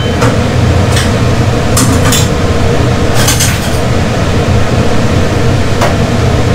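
Chicken soup with terung dayak boiling hard in an aluminium pot: a steady bubbling rush over a low hum, with a few short sharp pops or clinks scattered through it.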